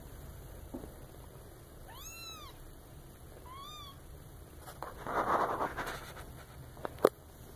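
A 19-day-old Maine Coon kitten mewing twice, short high-pitched mews that rise and fall, about two seconds in and again just before four seconds. A rustle follows around five seconds, and a sharp click near seven seconds is the loudest sound.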